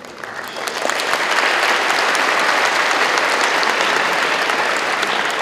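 Large crowd applauding in an arena hall, swelling over the first second and then holding steady.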